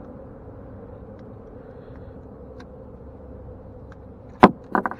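Pliers working a hook out of a weakfish's mouth over a steady low background hum. About four and a half seconds in there is one sharp knock, the loudest sound, followed at once by two short pitched squeaks.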